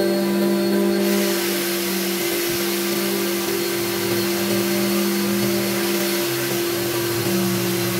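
Electric random orbital sander running over the face of a willow cricket bat: a steady motor hum under a sanding hiss that gets louder and brighter about a second in.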